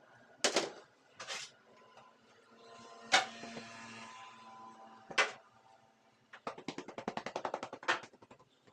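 A few sharp knocks or clacks of hard objects being handled, then a quick run of clicks, about ten a second, near the end.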